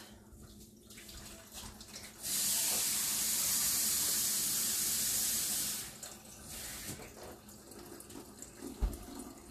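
Kitchen tap running into a glass measuring cup, a steady stream that starts about two seconds in and shuts off about three and a half seconds later.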